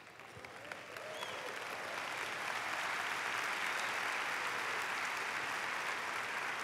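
Congregation applauding, swelling over the first couple of seconds and then holding steady.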